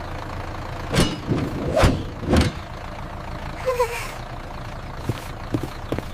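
A school bus engine running steadily as a sound effect, with three sharp knocks or thumps in the first few seconds and a short squeak about halfway through.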